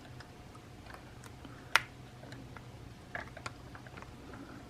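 Light clicks and taps of small tools and parts being handled while reassembling a phone, with one sharper click a little under two seconds in, over a faint steady hum.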